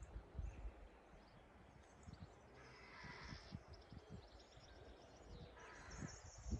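Near silence: faint outdoor ambience, a low uneven rumble with a few faint high chirps.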